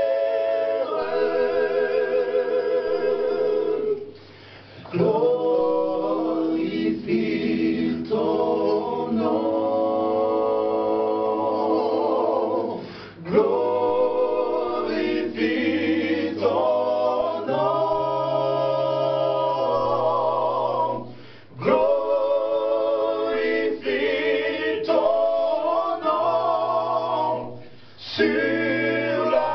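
Male vocal quartet singing a cappella in harmony: sustained chords with vibrato over a low bass line, no instruments. The singing breaks off briefly between phrases about every eight seconds.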